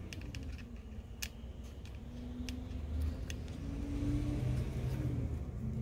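Metal tweezers clicking and scraping against the phone's frame, a few sharp ticks, over a low droning hum that grows louder about three seconds in.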